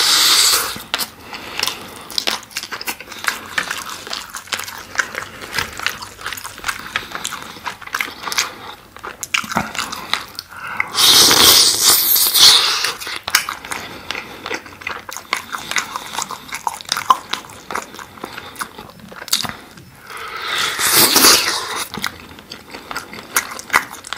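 Close-miked chewing of sauce-glazed chicken skewer meat: a steady run of small wet clicks and smacks. Twice, about 11 and 21 seconds in, a louder slurp of a second or so as meat is pulled off the skewer with the lips.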